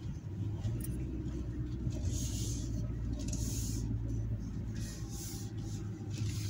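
Low, steady drone of a 2022 Hyundai Santa Cruz pickup heard from inside the cabin as it rolls slowly across grass to park, with a few brief swells of hiss.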